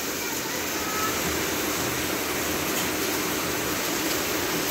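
Heavy rain falling steadily, an even dense hiss.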